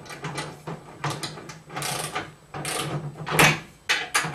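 Ratcheting torque wrench clicking in short, irregular strokes as the corner bolts of a roller frame are snugged down until they meet resistance.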